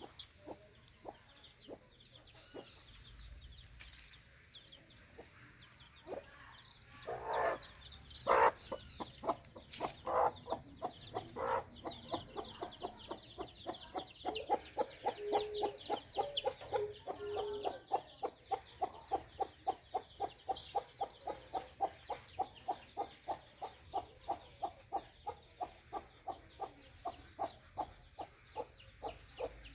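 Mother hen clucking in a steady run of short, regular clucks, about two a second, with a few louder calls near the start. Her chicks peep in thin, high chirps above her.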